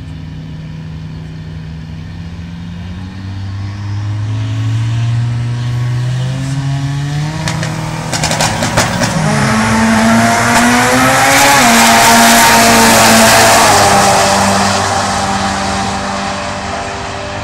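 Drag-racing cars, among them a 2.3-litre turbo Ford, launching from the start line and accelerating hard down the strip. Engine pitch climbs and drops back at each gear change, with a burst of crackles about eight seconds in. The sound is loudest just past the middle, then fades as the cars head toward the finish.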